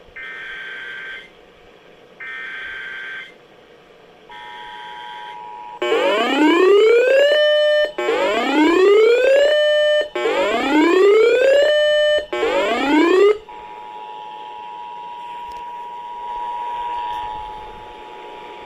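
Emergency Alert System tones over broadcast audio. First come three short buzzy SAME data bursts, then the steady two-tone attention signal. About six seconds in, a loud rising whoop sounds four times about two seconds apart, and the two-tone attention signal carries on more quietly after it.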